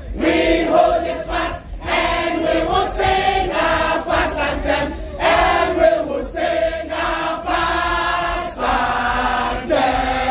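A large group of women and men singing a school anthem together in sung phrases with short breaks.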